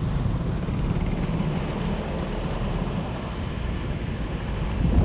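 Steady low road rumble with wind buffeting the microphone of a camera on a moving vehicle, and a brief thump near the end.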